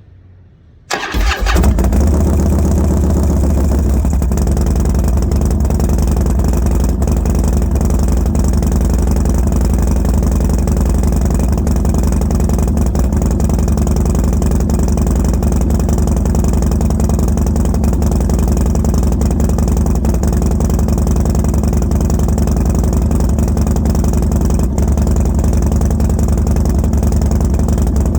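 2012 Harley-Davidson Dyna Street Bob's V-twin with Fueling 543 Reaper cams and a Bassani Road Rage 2 Mega Power 2-into-1 exhaust, started about a second in, catching and settling into a loud, steady idle. This is the rough idle the owner gets on a cold start since the cam swap and tune.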